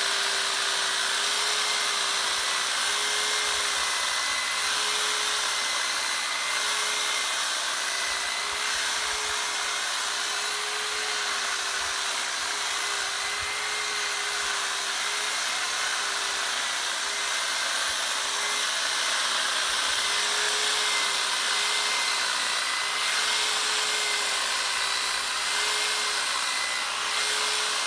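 Corded electric hedge trimmer running continuously as it cuts along the top of a hedge: a steady motor whine that wavers slightly in pitch.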